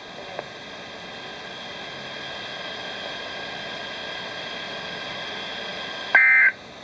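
Steady hiss of a weather radio receiver on dead air, with faint steady tones under it. About six seconds in comes one short, loud two-tone beep like a touch-tone (DTMF) signal.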